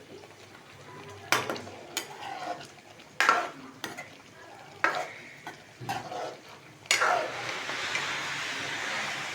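A metal spoon stirring and knocking against a karahi, with several sharp clanks. About seven seconds in, a steady sizzle of food frying in hot oil starts and continues.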